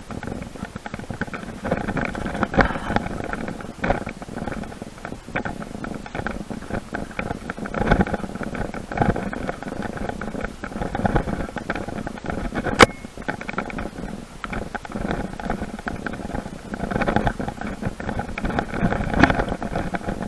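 Bicycle ridden over a bumpy dirt trail: the bike rattles and clatters and the tyres rumble on the dirt, with a single sharp click about two-thirds of the way through.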